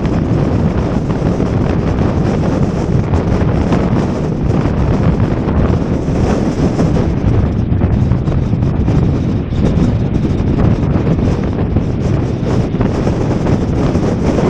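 Strong wind hitting the microphone in a snow blizzard: a loud, steady low rumble.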